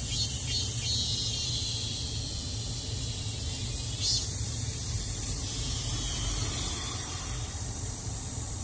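Cicadas calling: a pulsing high buzz about three to four pulses a second settles into a steady buzz, then a higher, louder steady buzz starts abruptly about four seconds in and cuts off near the end. A steady low hum runs underneath.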